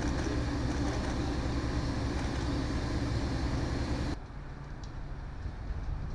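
Steady low mechanical hum with outdoor noise, which drops suddenly to a quieter hum about four seconds in.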